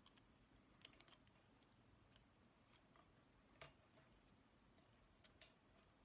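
Near silence with about half a dozen faint, sharp ticks and clicks scattered through, the clearest a little past halfway: a small metal tool picking at and untwisting the thin copper wire pairs of a CAT5e cable.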